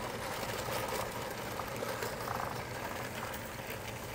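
Lionel O-gauge model freight train rolling past on three-rail track: a steady rumble and rattle of metal wheels on the rails with a low hum, growing slightly fainter near the end as the cars move away.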